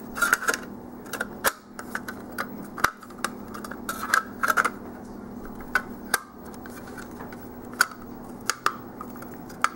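Irregular small plastic clicks and taps as hands handle a Micca Slim HD media player, working an SD card into its card slot, over a faint steady hum.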